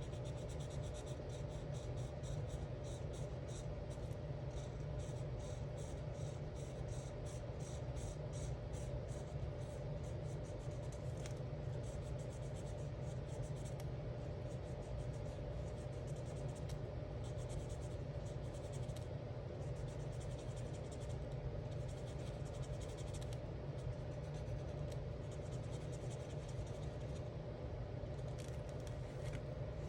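Alcohol marker tip rubbing back and forth on coloring-book paper in quick, even strokes, dense through the first half and then in shorter spells with pauses, over a steady low hum.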